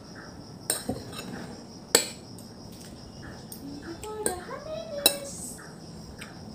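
Metal spoon clinking and scraping against a plate of food, a few separate sharp clinks: two close together about a second in, a loud one near two seconds and another about five seconds in.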